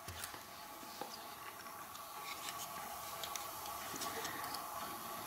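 Faint scattered light clicks and taps of hands handling a solder spool and a small plastic actuator on a wooden workbench during soldering, over a faint steady hum.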